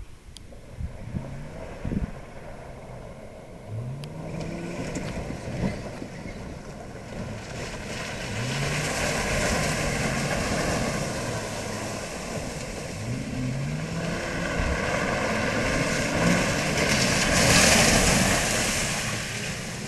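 Pickup truck engine revving up again and again as it drives through mud and standing water, with the tyres churning and splashing. It grows louder as the truck comes close near the end.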